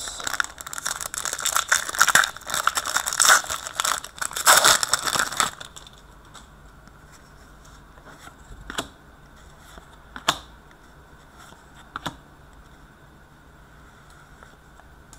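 A foil trading-card pack wrapper crinkling and tearing for about five seconds, then a few light clicks as the cards are handled.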